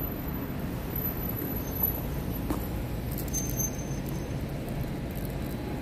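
Street traffic noise: a steady low rumble of vehicles on the road.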